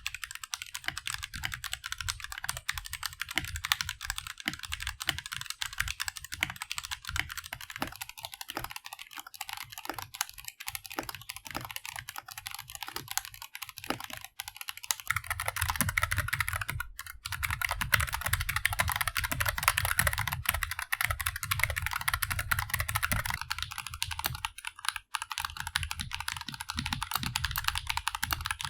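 Typing test on a Tecware B68+ wireless mechanical keyboard with Gateron Yellow linear switches: a fast, continuous run of key clacks, getting heavier and deeper about halfway through.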